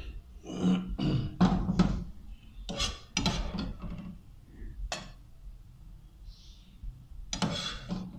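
A metal spoon scraping and clinking against a frying pan and a glass serving platter as chicken in sauce is spooned out onto rice. There is a run of scrapes in the first half, one sharp clink about five seconds in and another scrape near the end.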